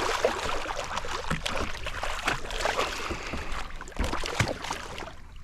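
Water splashing and sloshing at the side of a kayak, with scattered knocks and handling clatter on the hull throughout.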